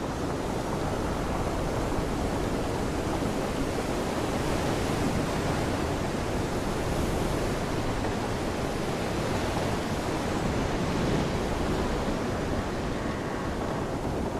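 Steady rushing noise, even throughout with no distinct knocks or voices.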